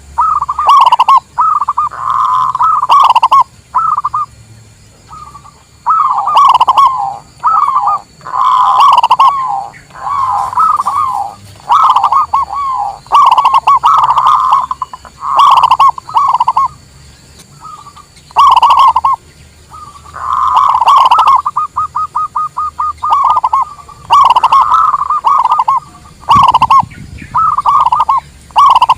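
Zebra dove (local perkutut) cooing: phrases of rapid staccato notes, each about a second long, repeated again and again with short pauses between them.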